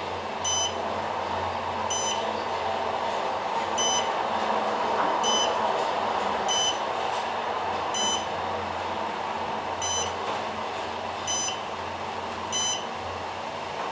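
Otis GEN2 elevator car travelling up: a short, high electronic beep roughly every second or so, the car's floor-passing tone, over the steady hum and rush of the moving cab.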